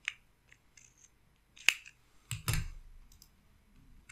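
Small sharp clicks of hands handling hardware, with one loud click a little before the middle and a duller knock just after it, as the USB installer stick is pulled from the server.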